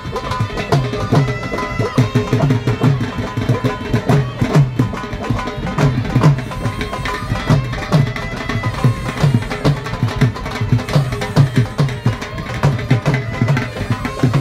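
Live folk music: been (gourd pipes) playing a melody over a steady dhol drum beat.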